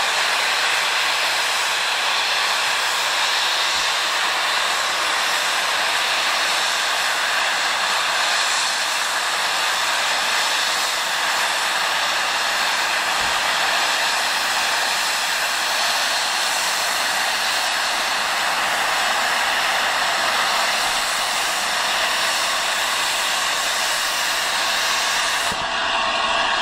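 Steam locomotive 60103 Flying Scotsman, an LNER A3 Pacific, blowing off steam through its safety valves while standing: a loud, steady hiss that stops suddenly shortly before the end, the sign of a boiler at full working pressure.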